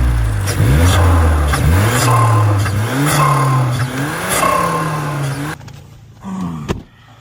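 Mazda3 Turbo's 2.5-litre turbocharged four-cylinder engine revved about four times in quick succession, rising and falling in pitch, then dropping back abruptly to a low steady hum; a sharp click near the end.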